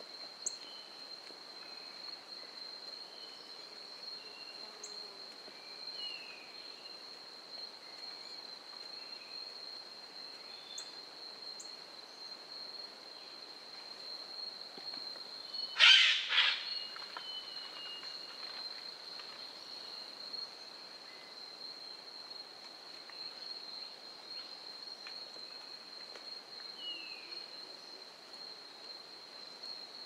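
A steady, high-pitched insect trill, with a few faint bird chirps and one loud, brief sound about halfway through.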